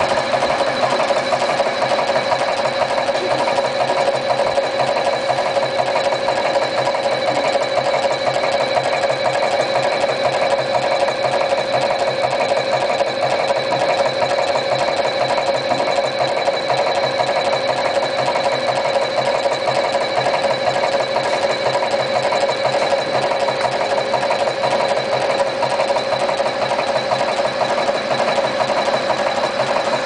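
EW-02A automatic wire cutting and stripping machine running continuously, feeding thin wire and cutting and stripping short lengths in rapid cycles. It makes a steady, fast mechanical chatter with a high, steady whine.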